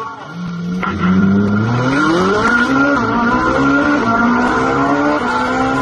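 Sports car engine accelerating hard, heard from inside the cabin: its pitch climbs steeply over the first two or three seconds, then holds high and steady.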